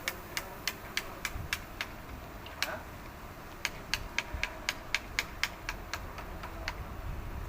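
A series of sharp metallic clicks or light taps, about three a second, in two runs with a pause of about two seconds between them.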